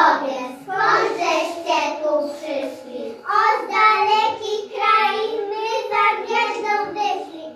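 Young children singing a song in a nativity play, in sung phrases with short breaks between them.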